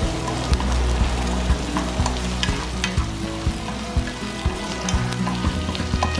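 Shrimp, sausage slices and sliced garlic sizzling in oil in a frying pan, stirred with a wooden spatula that knocks and scrapes against the pan about twice a second.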